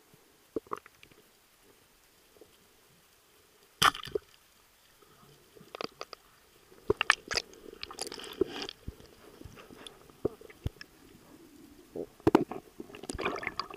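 Muffled knocks and clicks picked up underwater as a diver moves with his gear, one sharp knock about four seconds in and more frequent clatter after that. Near the end a rush of bubbling, sloshing water sounds builds as the camera nears the surface.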